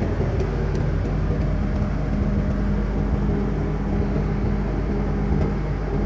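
Volvo Penta TAD532GE four-cylinder turbo-diesel generator engine running steadily at constant speed, heard up close.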